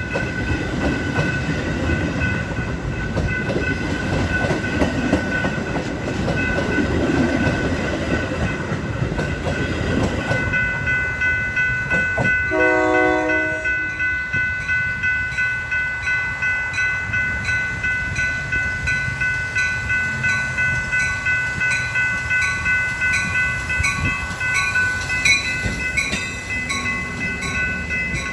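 A Metra commuter train rumbling past with wheels clacking while grade-crossing warning bells ring. About twelve seconds in the locomotive gives one short horn blast, and the rumble then dies away, leaving the crossing bells ringing in a steady pulse about twice a second.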